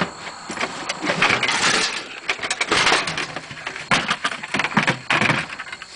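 Rummaging through a wooden tool compartment: fabric tool bags being shifted and gear inside them knocking and scraping, in a run of irregular rustles and clatters.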